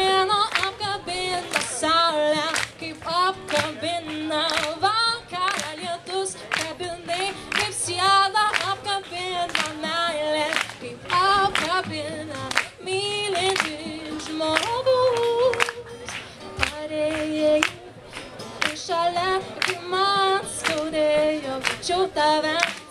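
A woman singing a song over a strummed acoustic guitar, her voice bending between and holding notes.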